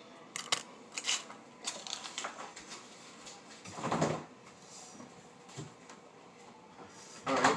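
Kitchen handling noises: scattered light clicks and knocks as things are handled at the counter, with a louder bump about four seconds in and another near the end.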